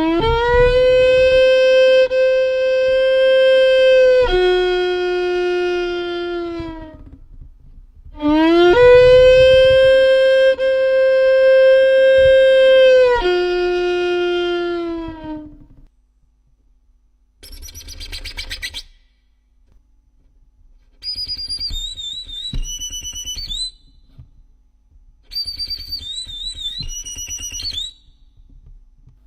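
Violin played as sound effects: two long held bowed notes, each dropping lower near its end, then a short scratchy bow stroke, then two high, whistling warbles with quick trills.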